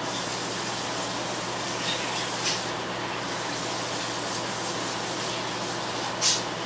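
Water running from a kitchen tap into the sink, a steady rush, with two brief sharp sounds from the sink about two and a half seconds in and near the end.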